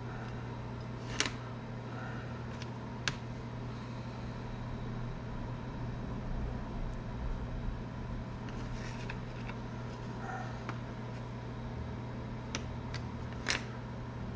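Steady low background hum, with a few light sharp clicks: about a second in, again about three seconds in, and twice near the end. The clicks come from small pieces of hot-melt glue stick being handled and pushed into a fishing-rod tip-top on the workbench.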